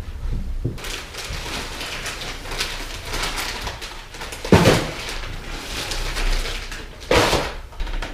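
Plastic bag crinkling and rustling as it is handled, with two louder rustles about halfway through and near the end.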